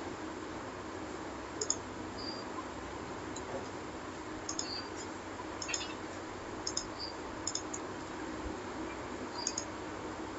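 Computer mouse buttons clicking: scattered sharp clicks, some in quick pairs, over a faint steady hum.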